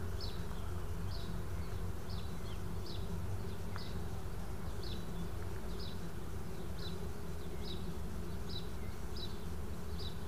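Outdoor ambience: a steady low hum with a short high chirp repeating about every three-quarters of a second.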